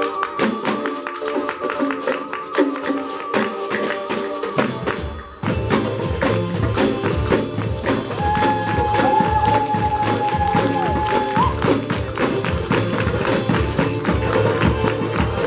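Adyghe dance music played by a percussion ensemble, with tambourines and other hand percussion keeping a fast, even rhythm. A low, steady beat comes in about five seconds in, and a long held melody note sounds in the middle.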